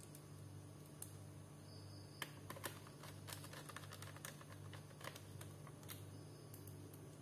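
Faint, irregular small clicks and taps of plastic parts as a laptop's back casing is fitted, coming several a second at times, over a steady low hum.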